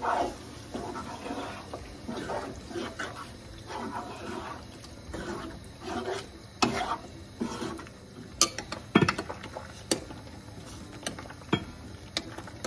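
Wooden spoon stirring thick mince-and-tomato sauce in a non-stick frying pan, a run of soft scraping strokes. In the second half come several sharp clinks and knocks of cookware, with the glass lid of the pasta pot being lifted near the end.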